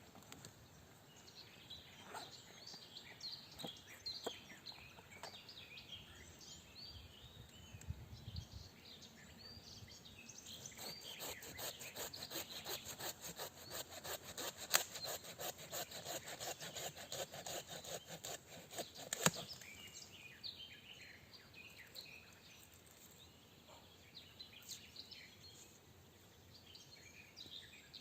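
Hand saw cutting through wood in quick, even strokes for about ten seconds in the middle, ending with a sharp crack. Small birds chirp throughout.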